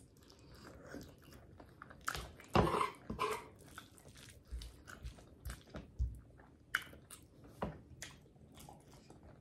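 Close-miked chewing and lip smacking while eating creamy Alfredo ramen with chicken: irregular wet smacks and clicks, busiest about two and a half to three and a half seconds in.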